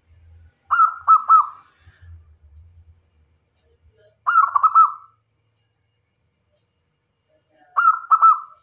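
Zebra dove (local perkutut) cooing: three short song phrases, each a quick run of three or four ringing coo notes, about three seconds apart.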